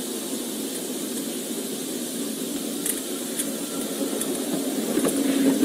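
Steady running noise of a patrol car heard from inside the cabin: a low engine and fan hum with a few faint ticks, rising a little near the end.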